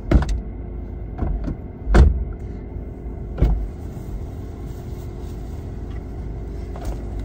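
Steady hum inside a parked car, broken by a few sharp knocks and thumps; the loudest comes about two seconds in.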